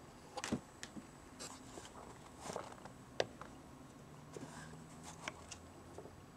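Light, irregular taps, clicks and brief scratches of cats' paws and claws on a carpeted cat tree as the cats step and shift about on it.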